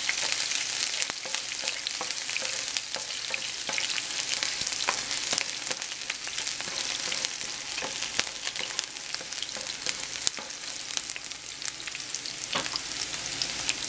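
Diced onion frying in hot oil in a frying pan, sizzling steadily with many fine crackles as it browns, and a spatula stirring and scraping the pan now and then.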